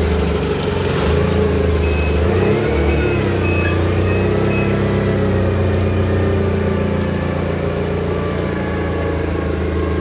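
An engine running steadily at idle, a low, even hum.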